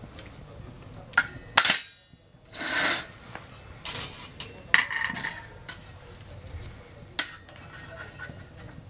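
A wire grill rack and a steel knife clinking and clanking against a stainless steel wood-gas camping stove: several sharp metallic strikes with short ringing, the loudest about a second and a half in, and a brief scrape around three seconds in.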